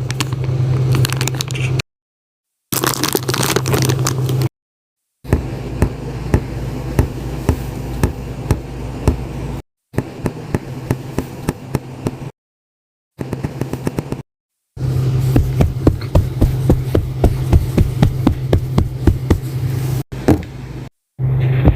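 A string of short sound-effect clips separated by abrupt moments of dead silence. Several clips hold a steady low hum with rapid sharp clicks or ticks, which come about two to three a second in the longest clip near the end.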